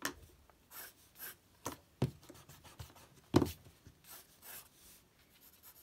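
Graphite pencil and eraser working on drawing paper: a series of short separate strokes, the loudest about three and a half seconds in.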